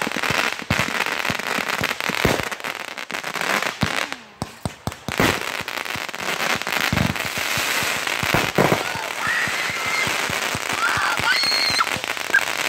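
Consumer fireworks going off in a dense barrage: many sharp pops over continuous crackling from crackling stars and comets.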